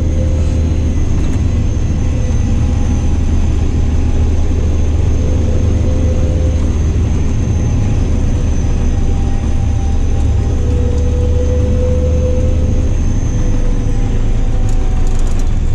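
John Deere 8520 tractor's six-cylinder diesel running steadily at road speed, a deep even hum with a faint high whine above it.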